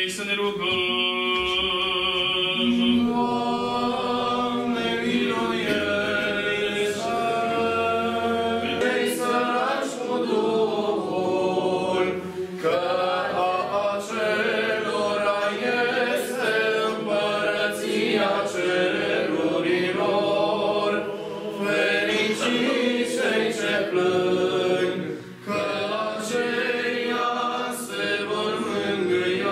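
Choir of Orthodox nuns singing liturgical chant a cappella: a continuous sung line with held notes and brief breaths between phrases.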